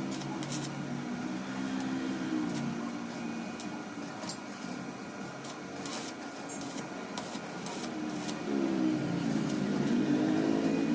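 A motor running, its pitch rising and falling, with scattered sharp clicks.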